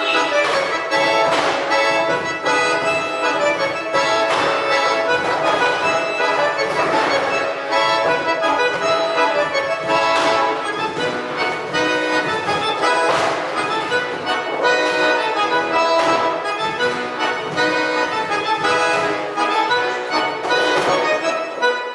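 Accordion music: a traditional-style tune played steadily, with regular accents.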